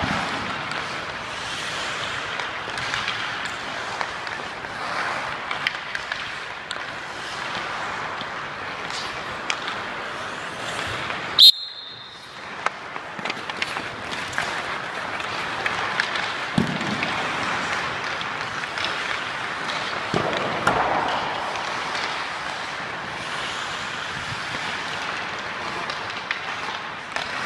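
Ice hockey skate blades carving and scraping on rink ice, with scattered sharp clicks and knocks of sticks on pucks. A brief sharp high-pitched blip just before the midpoint.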